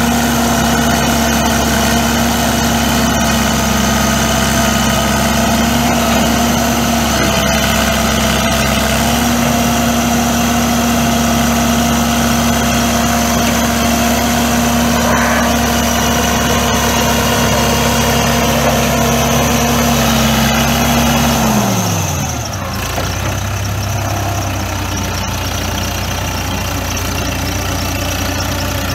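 Ford Versatile 276 tractor's four-cylinder diesel engine running at a steady, fast speed, then throttled down about three-quarters of the way through, its pitch dropping quickly before it settles at a low idle.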